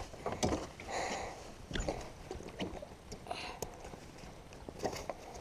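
Scattered knocks, clicks and rustling as tackle bags, boxes and a cooler are shifted about in the bottom of a metal fishing boat.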